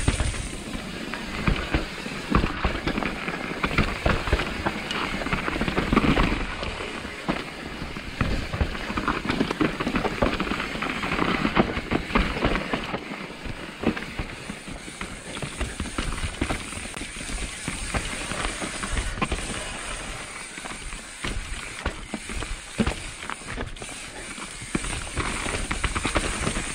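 Mountain bike riding down a dirt trail: a steady rush of tyre and riding noise with frequent knocks and rattles from the bike over rough ground.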